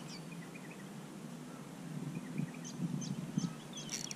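Small birds chirping in quick short notes over a steady low outdoor rumble, with a few louder low thuds in the second half and a sharp click at the very end.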